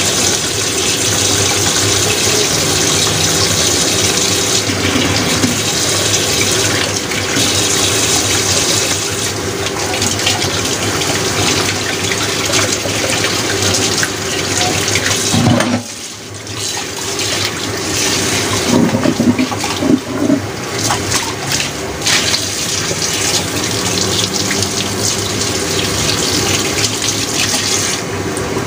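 Beef and shiitake mushrooms simmering and sizzling in a covered pan under a glass lid: a steady hiss of bubbling liquid that dips briefly a little past the middle.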